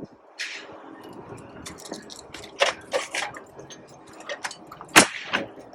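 A few sharp knocks and clicks from work on wooden shed door trim, the loudest about five seconds in.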